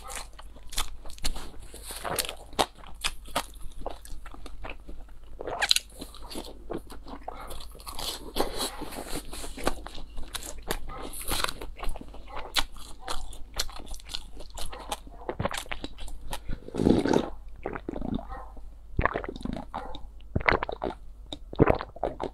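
Close-miked eating: crunchy bites and chewing of a fried pastry crust, with many small crackles, then sips and slurps from a bowl of drink, one fuller gulping sound about three-quarters of the way in.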